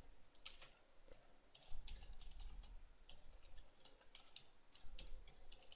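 Quiet typing on a computer keyboard: an irregular run of short key clicks.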